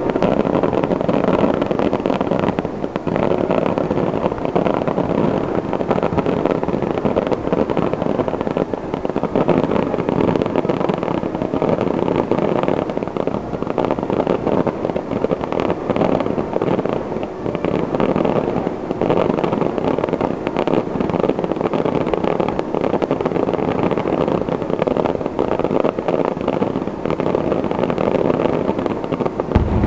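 Aerial fireworks going off in a dense, unbroken barrage of crackling and bursting shells, with a heavier low bang near the end.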